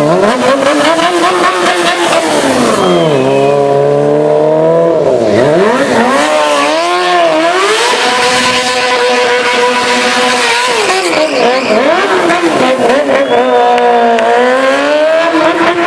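Stunt motorcycle engine revving hard up and down again and again, with tyre screech and skidding as the rear tyre spins in a smoking burnout.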